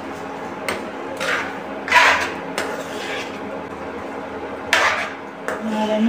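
A spatula stirring thick bean curry in a non-stick kadai, scraping and knocking against the pan a handful of times, over a steady low hum.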